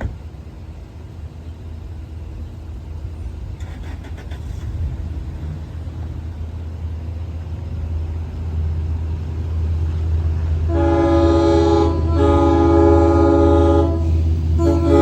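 An approaching Long Island Rail Road diesel train, its low engine rumble growing steadily louder, then the train horn sounding for the grade crossing: two long blasts from about eleven seconds in, and a third beginning near the end.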